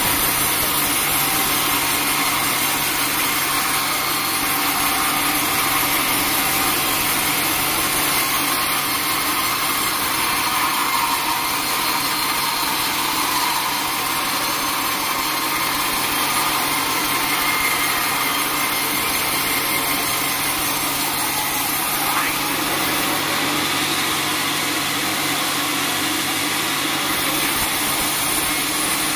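Band sawmill running steadily, its motor and blade sawing through a teak log.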